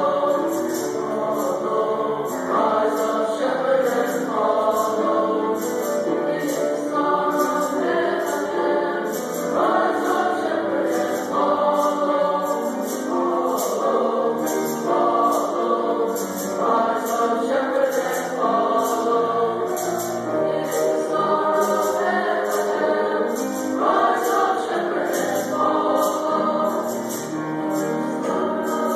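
A junior high school choir singing, many voices together, over a steady high-pitched percussion beat about twice a second.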